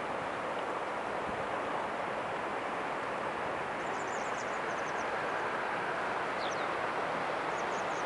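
Steady rushing of a shallow river running over a stony bed, with small birds giving short runs of high chirps around the middle and again near the end.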